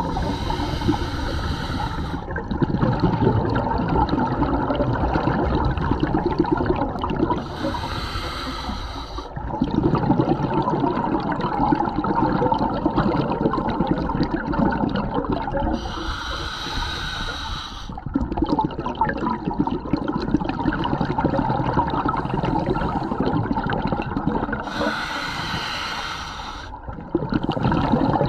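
Scuba diver breathing underwater through a regulator. There are four hissing inhalations, each about two seconds long and roughly eight seconds apart, with the bubbling of the exhaled air filling the gaps between them.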